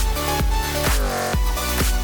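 Background electronic dance music with a steady beat of about four kicks a second and a downward sweep about a second in.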